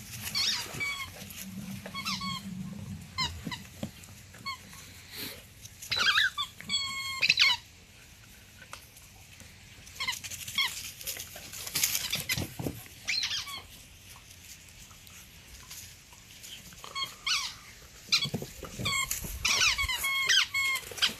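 A rubber squeaky toy squeaking in short, high squeaks as pitbull puppies chew and tug at it. The squeaks come scattered and irregular, with a quick cluster about six to seven seconds in and more near the end.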